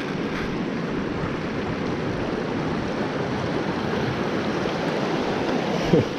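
Fast, shallow river flowing over stones, a steady rush of water. A brief sharp sound comes near the end.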